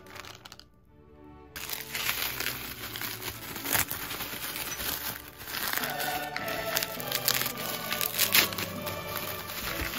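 Bubble wrap crinkling and crackling as hands handle a wrapped jar, starting about a second and a half in, over background music.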